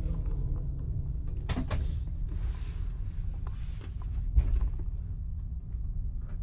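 Steady low hum inside a stationary TGV Duplex carriage, with a sharp click about one and a half seconds in, some soft rustling, and a dull thump a little after four seconds.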